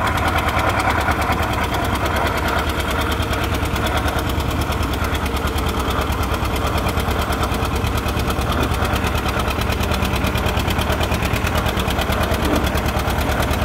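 John Deere 730 two-cylinder diesel engine running under load while pulling a weight-transfer sled, with a steady, fast firing beat.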